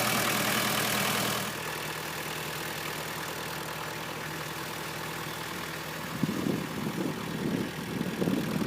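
Wacker Neuson EZ53 mini excavator's diesel engine idling steadily, dropping in level about a second and a half in. From about six seconds in, irregular rustling and knocking noises sound over it.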